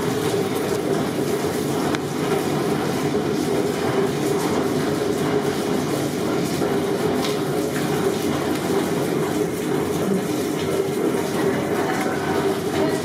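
Steady, loud rushing and rumbling background noise of a working commercial kitchen, with no single sound standing out.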